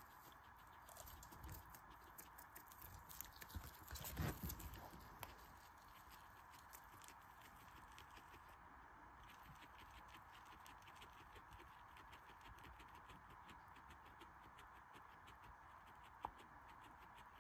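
Guinea pig chewing: a fast, steady run of faint crisp clicks, louder and busier for a few seconds near the start.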